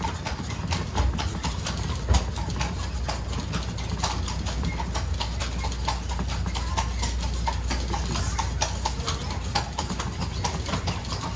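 A carriage horse's hooves clip-clopping on cobblestones as it pulls the carriage, a steady run of irregular clacks several times a second, over a low steady rumble.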